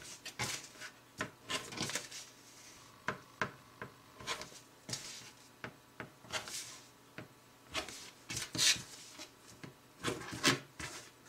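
Rotary cutter blade run through paper-backed fabric on a cutting mat in short strokes, trimming off corners. The strokes come as a string of brief, irregular scraping cuts with a few longer rasping sweeps.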